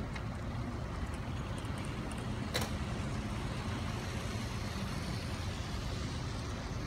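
Steady low background rumble of a busy station hall, with one sharp click about two and a half seconds in.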